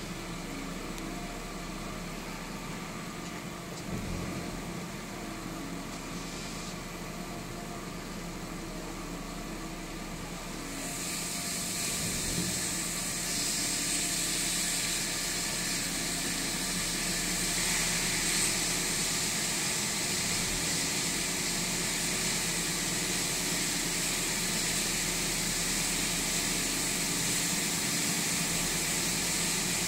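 Engine idling steadily, with the rough idle that the owner is showing. About a third of the way in, a steady hiss joins and the overall sound gets louder.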